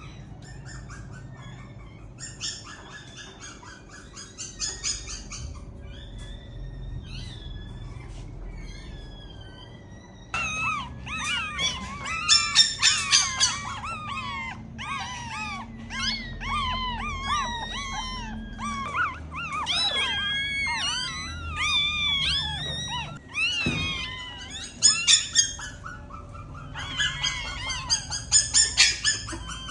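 A dog whimpering and squealing: many short, high-pitched cries in quick series that bend up and down in pitch. The cries grow much louder about a third of the way in.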